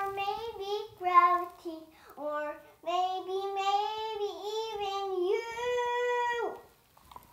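A young girl singing, her voice moving in short phrases and then rising into a long held note near the end that cuts off.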